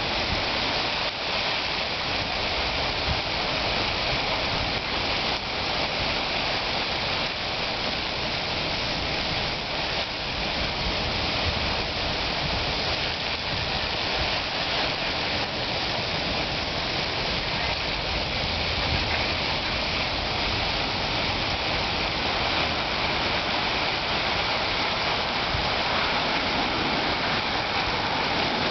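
Sleet falling in a snow storm, ice pellets hitting surfaces in a steady dense hiss.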